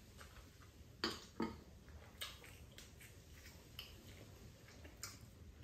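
Quiet eating sounds: chewing on twisted doughnuts and rice cakes, with a few short clicks and knocks of steel chopsticks against the dishes.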